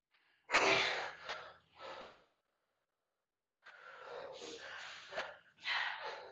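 A woman breathing hard after push-ups to exhaustion: several heavy, breathy exhales, one long one in the middle.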